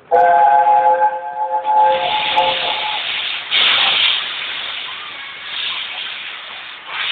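Peppercorn A1 steam locomotive 60163 Tornado sounding its whistle, several notes held together for about three seconds. A loud hiss of escaping steam follows, surging about three and a half seconds in.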